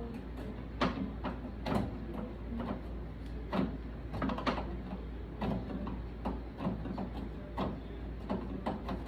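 Irregular small clicks and knocks of a screwdriver working a screw out of a microwave oven's metal casing, over a steady low hum.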